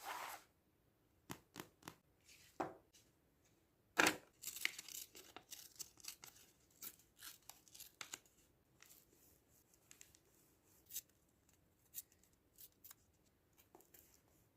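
Paper being cut with scissors and torn by hand: irregular crisp snips and short rustles, the loudest about four seconds in, followed by a run of quick rustling.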